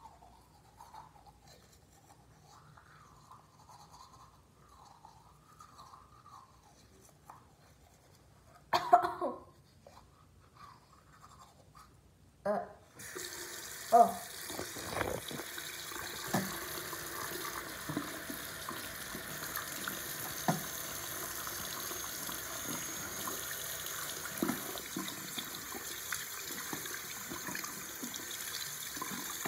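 Teeth being brushed with a toothbrush, faint and scratchy, then a couple of loud knocks of something handled at the sink. From about thirteen seconds in, a bathroom tap runs steadily into the sink, with scattered knocks and clinks over the running water.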